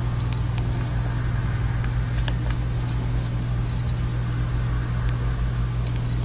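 Steady low hum with a hiss underneath, and a few faint clicks of buttons on a handheld camcorder being pressed.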